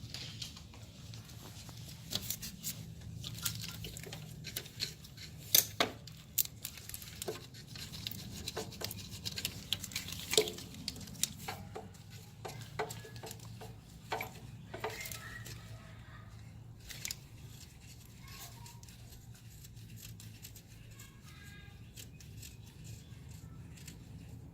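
Scattered metallic clicks and knocks of tools and bolts being handled while a Toyota Camry alternator is jiggled into place and its mounting bolts are started by hand, over a low steady hum.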